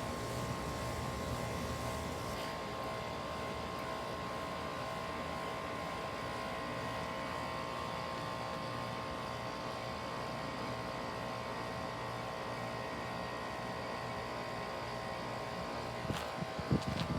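Heat pump outdoor unit running steadily in its defrost cycle: a compressor hum with several steady tones, its higher hiss dropping away about two and a half seconds in. A few sharp clicks near the end.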